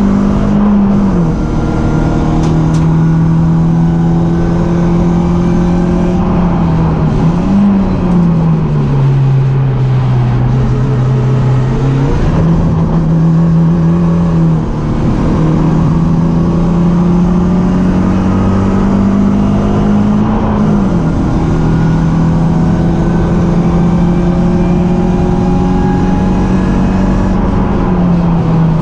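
BMW 318ti Cup race car's four-cylinder engine running hard at high revs. Its pitch holds steady for long stretches and jumps abruptly at gear changes: it drops about a second in, dips lower for a few seconds about a third of the way through and climbs back, then drops again twice near the end.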